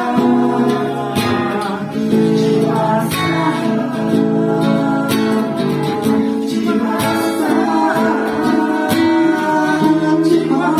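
Acoustic guitar strumming chords at a steady rhythm.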